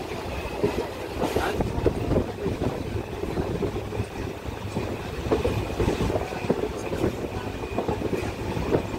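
Passenger train running, heard from inside the coach: a steady rumble with wheels clattering and rattling over the track.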